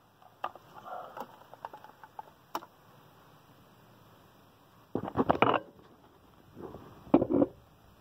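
A few light metal clicks and taps from a T-handle and socket worked against a valve stem at the wheel rim, then two short bursts of rustling, the louder one about five seconds in.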